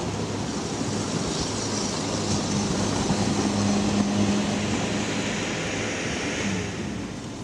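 Sherp amphibious all-terrain vehicle's diesel engine running as it drives across river ice, a steady hum that swells about halfway through and then eases off.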